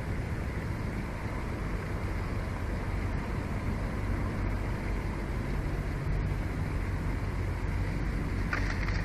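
Steady low rumble and hiss of outdoor ambient noise picked up by the nest camera's microphone. About eight and a half seconds in, a quick run of high crackly sounds begins.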